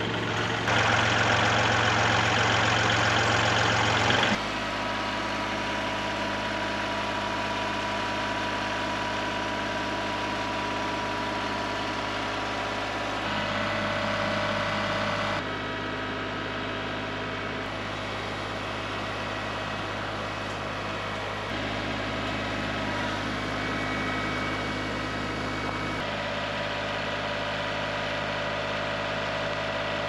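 Kubota L2501 compact tractor's diesel engine running steadily, heard in several short clips that cut abruptly from one to the next. For the first four seconds or so a louder, harsher machine noise takes its place.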